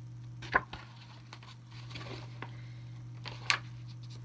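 Two short papery flicks of a picture book's pages being handled, about half a second in and again about three seconds later, over a steady low hum.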